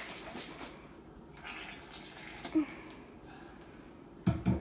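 Carbonated lemonade and cherry Sprite fizzing and dripping at the pull-top spout of a plastic squeeze bottle after foaming over, with fingers handling the cap. A few loud bumps come near the end.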